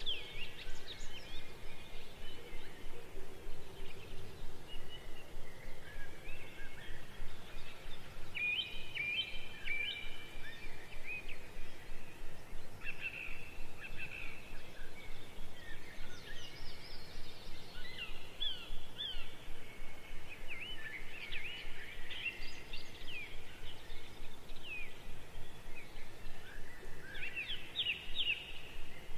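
Small birds chirping and twittering, runs of short high chirps and quick trills that keep coming throughout, over a steady background hiss.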